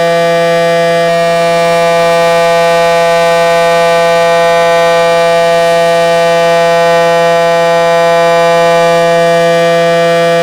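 Early Federal Signal 500 outdoor warning siren sounding a loud, steady tone that holds its pitch without rising or falling.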